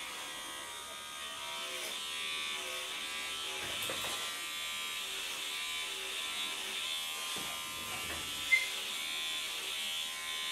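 Electric hair clipper running with a steady buzz while short hair is trimmed. A brief sharp tick stands out about eight and a half seconds in.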